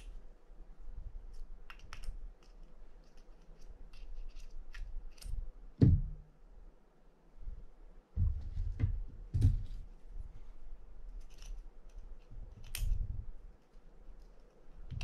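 Small metal parts of a spinning reel's rotor and bail assembly clicking and scraping as they are worked loose by hand and with a small tool. A louder knock comes about six seconds in, and several dull handling bumps follow later.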